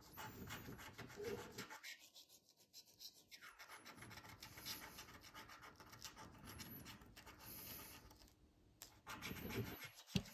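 Coin scratching the coating off a scratch-off lottery ticket: faint, quick rasping strokes. Near the end comes a louder thump as the camera tripod is bumped.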